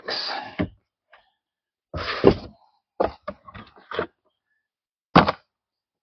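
Cardboard boxes being handled: a product box slid out of a shipping carton with short scraping rustles, then a cluster of light thunks and knocks as it is set down on a table, and one sharper knock about five seconds in.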